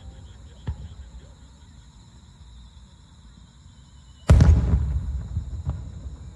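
Aerial fireworks booming: a faint pop under a second in, then about four seconds in a sudden loud boom that rumbles away over the next two seconds, and a smaller pop near the end.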